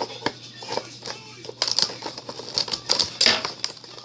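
Plastic and cardboard action-figure packaging being handled and pulled open: a run of sharp clicks and crinkles, busiest in the second half.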